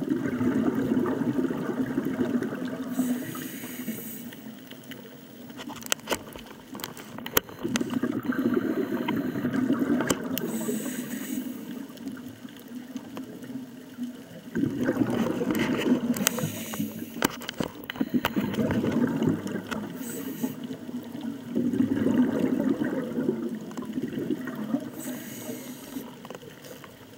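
Scuba diver breathing through a regulator underwater: about every seven seconds a rush of exhaled bubbles lasting a few seconds, four times, with a short high hiss between them.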